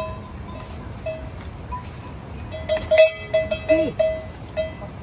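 A small bell clanking irregularly at one pitch, with a quick run of sharper clanks about three seconds in.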